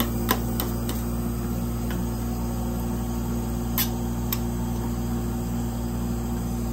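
Steady hum of a rolled-ice-cream cold-plate machine running, with three sharp clicks of steel spatulas tapping the plate, once right at the start and twice close together a little past the middle.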